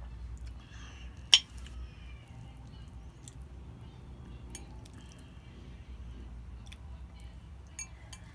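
Eating sounds from a meal of instant noodles and siomai: scattered light clicks of utensils against a dish, with one sharp clink about a second and a half in, over a low steady hum.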